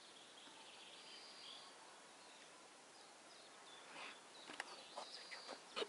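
Near silence: faint outdoor ambience with distant bird chirps, and a few soft clicks in the last two seconds.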